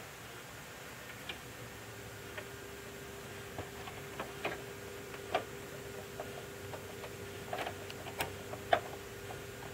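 Irregular small clicks and taps from gloved hands working an ink-refill syringe into an inkjet cartridge seated in a printer. The loudest tap comes near the end, over a faint steady hum.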